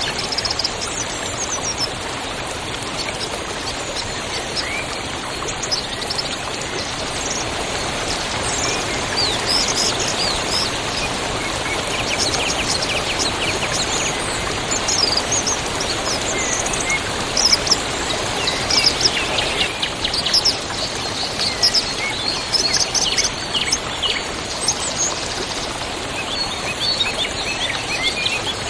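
River water rushing steadily, with several small birds chirping and trilling over it; the birdsong grows busier in the second half, including short rapid trills.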